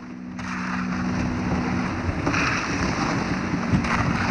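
Kayak paddle strokes through water crowded with small floating ice: a splash and slosh about every second and a half over steady wind on the microphone. A low steady hum runs under the first half.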